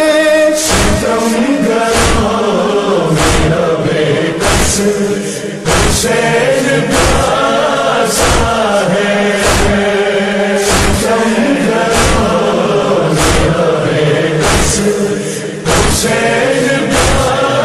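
Male voices chanting an Urdu noha, a Shia lament, over a steady rhythm of matam chest-beating, one sharp slap about every 1.2 seconds.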